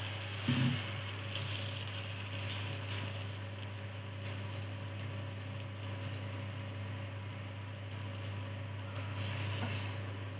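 Thin whole-wheat dosa batter sizzling with a steady hiss on a hot oiled pan as it is poured and spread from a ladle. There is a soft knock about half a second in, over a steady low hum.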